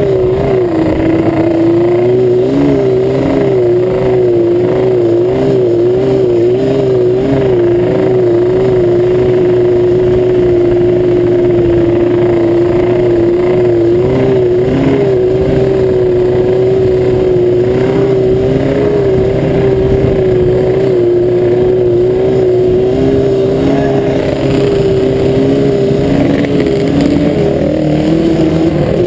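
ATV quad engine running at a steady cruising speed, its pitch wavering gently up and down with small throttle changes.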